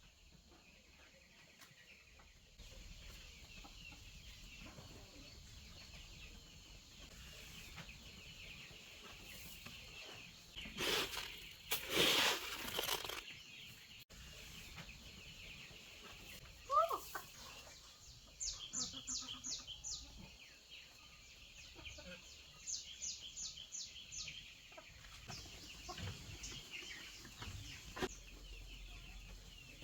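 Chickens clucking and calling over a steady high background. A loud rustling burst comes about eleven seconds in, and quick runs of short high chirps come later.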